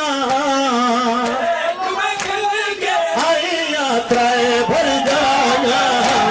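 Male noha reciter singing a Punjabi mourning lament into a microphone, holding long, wavering, drawn-out notes without instruments. Sharp slaps about once a second come from mourners beating their chests in matam.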